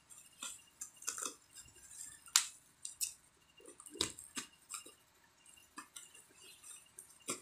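Plastic bubble mailer crinkling and crackling as it is worked and pulled open by hand, with scattered sharp clicks and snaps, the loudest about two and a half seconds in and again at four seconds.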